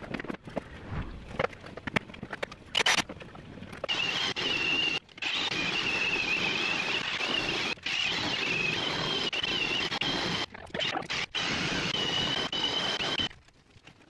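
Cordless power tool buffing scuffed paint on a car's front bumper: it starts about four seconds in and runs steadily with a high, slightly wavering whine, stopping briefly a few times before it cuts off near the end. Before it starts there are a few light clicks and knocks of handling.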